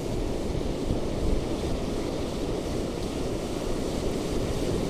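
Ocean surf washing onto a beach with wind buffeting the microphone: a steady rushing noise with a low rumble.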